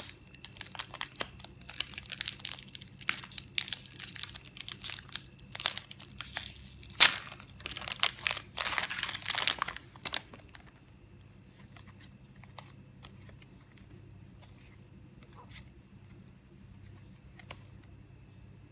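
Foil booster pack wrapper being torn open and crinkled, crackling for about ten seconds, then only faint taps as the trading cards are handled.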